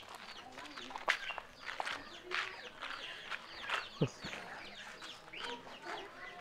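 Chickens clucking and birds chirping in short, scattered calls, with a single dull thump about four seconds in.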